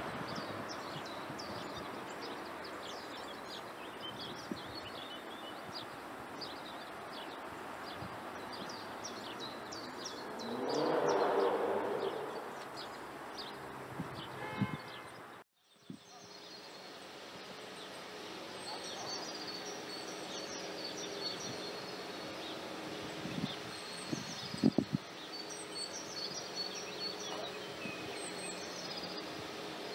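Trackside outdoor ambience: a steady background hiss with small birds chirping throughout. A rushing noise swells and fades about a third of the way in. The sound cuts out for a moment halfway through, then birds chirp more clearly, with a few sharp knocks near the end.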